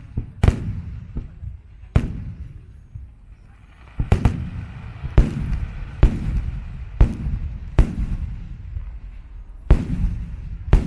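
Aerial firework shells bursting in a rapid series of sharp booms, about a dozen in all, each trailing off in a low rumbling echo. There is a short lull in the middle.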